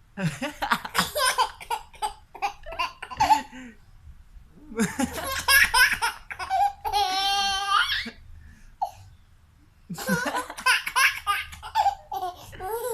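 A small child laughing in bursts and making breathy, snore-like mimicking noises, with one long drawn-out voiced sound about seven seconds in.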